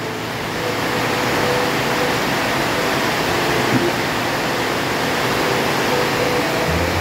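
Heavy rain pouring steadily onto a swimming pool and the ground around it, an even, unbroken hiss.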